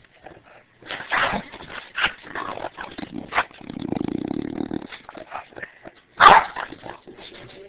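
English bulldog growling and barking in irregular short bursts, with a longer low growl around the middle and one loud bark just after six seconds in: agitated vocalising at something pointed at her.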